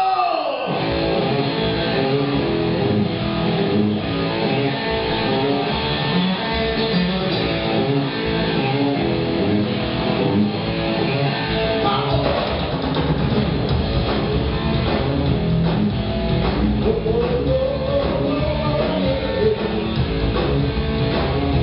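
Live rock band playing the opening of a song: electric guitar with drums and bass, the sound growing fuller about twelve seconds in.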